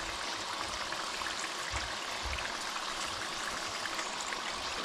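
Turon (banana spring rolls) frying in hot oil in a pan: a steady sizzle with small crackles.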